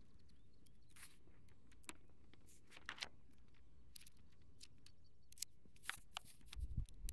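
Thin Bible pages rustling and flicking faintly as a book is opened and its pages fanned through, with a few louder page flips scattered through; a low rumble comes in near the end.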